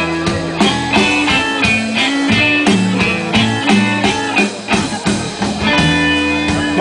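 Live blues band playing an instrumental passage: electric guitar over bass guitar and drums, with no singing.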